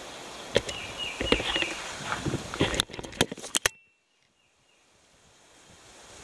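Outdoor rustling with sharp clicks from a handheld camera being moved about. About four seconds in, the sound cuts out to near silence and then slowly fades back in.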